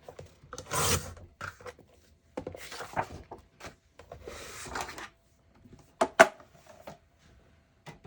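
Cardstock being handled and slid across a work surface in several rustling, rubbing strokes, with two sharp taps about six seconds in.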